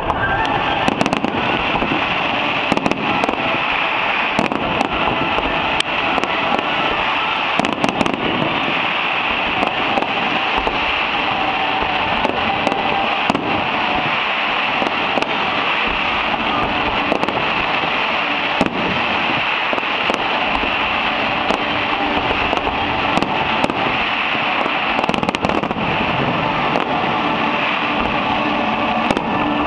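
Firework display: many sharp bangs going off in quick, irregular succession over a continuous crackling rush.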